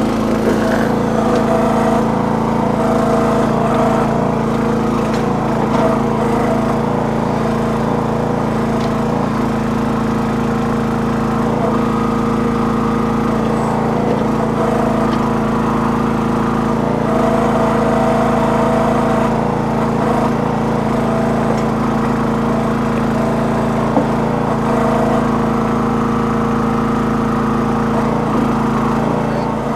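Small engine of a towable backhoe running steadily while the machine digs and moves, with a single short knock about three-quarters of the way through.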